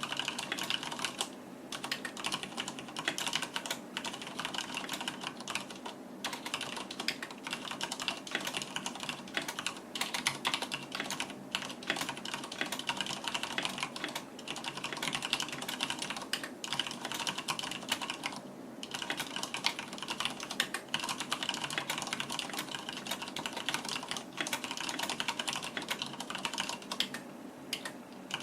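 Fast, continuous typing on a Deck Hassium mechanical keyboard with Cherry MX Red linear switches and PBT keycaps: a dense run of keystroke clicks with a few brief pauses.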